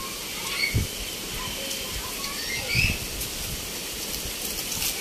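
Birds chirping now and then over a steady hiss, with two dull low thumps about one and three seconds in as a knife cuts grilled bird meat on a plate.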